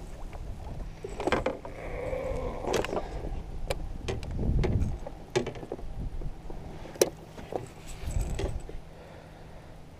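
Clatter of fishing gear being handled in a canoe: scattered clicks, knocks and rattles, the sharpest about seven seconds in.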